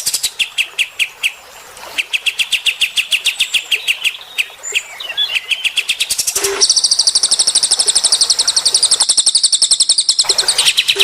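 Songbird song of the cage-bird training kind: fast runs of short repeated chirps, then a louder, higher and faster trill starting a little past halfway.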